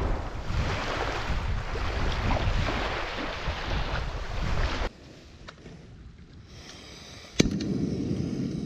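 Small waves washing on a sandy shore with wind on the microphone, which cut off abruptly about five seconds in. Near the end come a sharp click and then a steady low rush as a camping gas stove lights.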